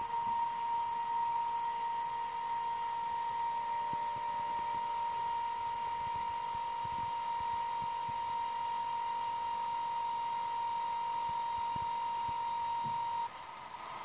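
Recorded oil pre-lubrication pump of a DB class 218 diesel locomotive with its TB11 engine, a steady high whine over a hiss, played through a small H0 model-locomotive loudspeaker. Near the end the whine cuts off suddenly and a noisier sound takes over as the engine start sequence begins.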